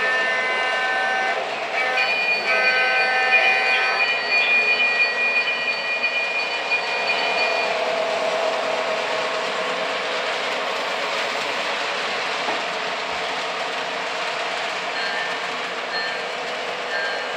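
Lionel LionChief RS3 O gauge diesel locomotive's sound system sounding its horn in two blasts in the first four seconds. Then it runs on with a diesel engine hum over the steady rolling rattle of the train's wheels on three-rail track.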